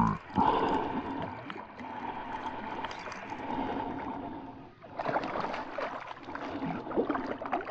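Hooked bass thrashing and splashing at the water's surface during the fight, in irregular splashes that grow busier after about five seconds.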